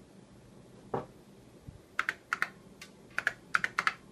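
Keys being typed on an Apple IIe keyboard, entering a password at a login prompt. A dull knock comes about a second in, then a quick, uneven run of about a dozen sharp key clicks.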